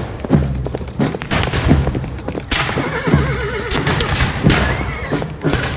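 Battle sound effects played through the panorama hall's speakers: a horse whinnies with a wavering call about three seconds in, over repeated thuds and knocks.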